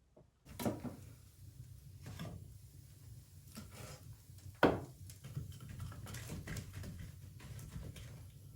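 Knocks and scrapes of wood being handled, the sharpest knock about halfway through, over a steady low rumble.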